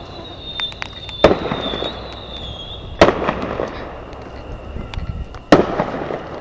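Consumer firework bursts: three loud, sharp bangs about two seconds apart, each trailing off in a short spray of crackle and echo. A thin, high, wavering whistle runs through the first half.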